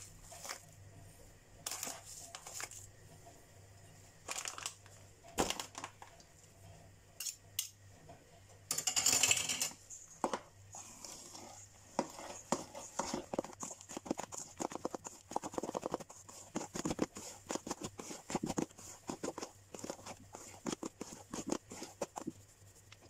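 Hand kneading and squeezing mashed potato dough in a stainless steel bowl: a run of short, soft strokes, a few a second, through the second half. Before that, scattered clicks and scrapes against the bowl and a longer rustling noise about nine seconds in.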